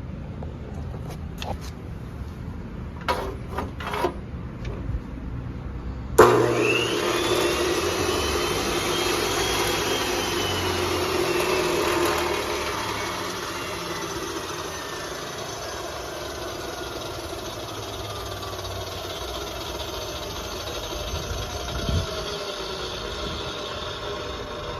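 Hitachi CC16 405 mm high-speed cut-off saw switched on after a few clicks of handling: its motor starts with a sudden jolt and spins the wheel up with a rising whine. After several seconds the sound drops, and the whine falls slowly as the wheel winds down.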